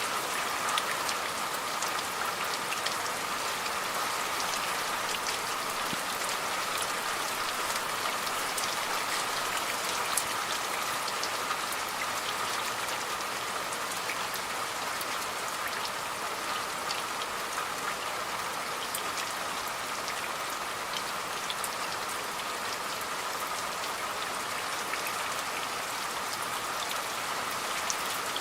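Steady rain falling, a continuous hiss with many sharp individual drop hits scattered through it.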